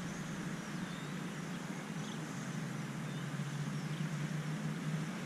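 Steady low hum of distant traffic, with faint high bird chirps coming and going several times.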